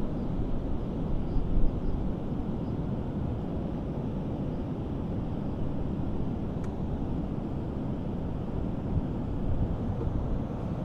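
Steady low rumble of wind buffeting the microphone over rushing, churning river water, with a stronger gust about one and a half seconds in and one faint click later on.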